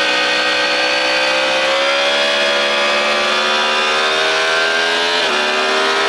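Sport motorcycle engine at high revs at full throttle, its pitch climbing slowly, then dropping once about five seconds in at an upshift. Heavy wind rush on the bike-mounted microphone.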